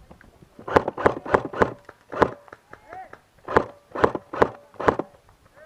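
Airsoft gun fired in semi-automatic, about nine sharp cracks: a quick string of four, then single shots, then three more close together near the end.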